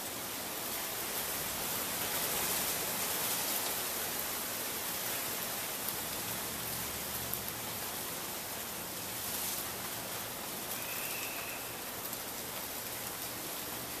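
1980 Casablanca Victorian ceiling fan running: a steady, even whoosh of air from its spinning wooden blades, with a faint low hum underneath.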